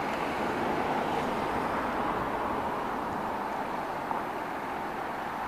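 Steady outdoor urban background noise, like distant traffic, with no distinct events.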